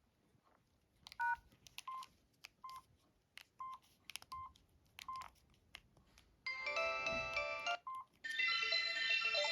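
Samsung SGH-D500 mobile phone: a run of short keypad beeps, each with a click of the key being pressed, then from about six and a half seconds in a melodic tone plays from the phone's speaker for about a second, stops, and after one more key beep a second, longer melody starts.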